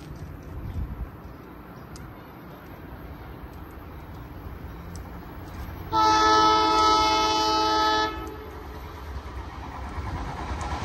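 Train horn sounding one long blast of about two seconds, several notes at once, about six seconds in. A low rumble of a train runs underneath and grows louder near the end.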